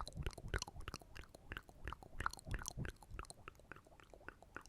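ASMR mouth sounds close to the microphone: a quick run of wet clicks and smacks, several a second, thinning out near the end.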